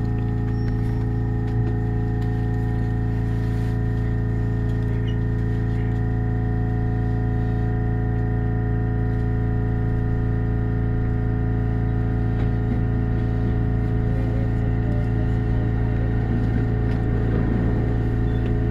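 Steady electrical hum of a Shinano Railway SR1 series electric train, heard as a stack of unchanging tones with no rise or fall in pitch. A rougher rattling noise joins it over the last few seconds.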